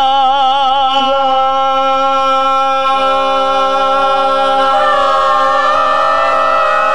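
A small group of untrained voices singing an unaccompanied held 'la' chord: one voice with vibrato first, more voices joining about a second in and again about three seconds in, all holding steady notes. The harmony is out of tune, judged horrible by the group's leader.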